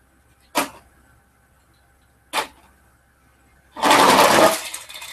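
Two sharp clicks, then a loud clatter lasting about a second, nearly four seconds in, as two die-cast Hot Wheels Monster Jam toy trucks are let go and run down a starting ramp onto the carpet.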